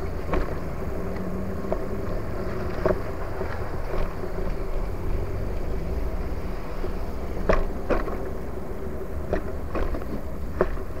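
Prophete Entdecker E-2000 e-bike riding over rough ground: steady tyre and wind noise with a faint steady hum, and several sharp knocks and rattles in the second half as it bumps over kerbs, paving stones and a dirt path.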